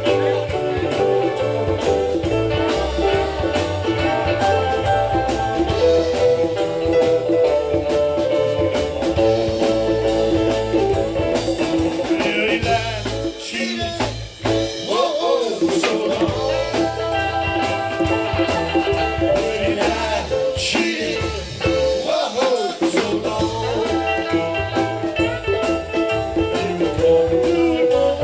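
Rock band playing an instrumental passage: electric guitars over a drum kit.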